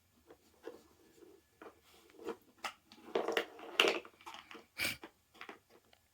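A malamute nosing and pushing at a plastic treat puzzle toy while searching for leftover treats, making irregular clacks and knocks that cluster about three seconds in, with one sharper knock near the end.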